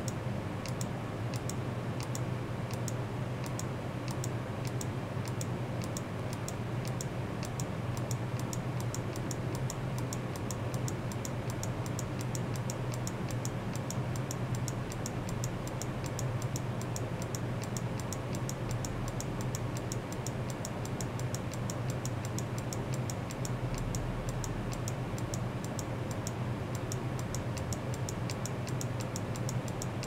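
A steady low hum with a fast, even ticking over it, several ticks a second.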